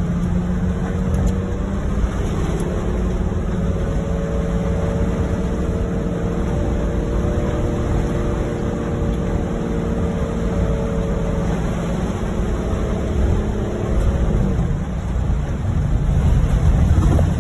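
A car heard from inside the cabin, driving on a rain-soaked road in heavy rain: a steady low rumble of engine and tyres under an even hiss of water and rain. A humming engine note rises a little and then fades out about three-quarters of the way through.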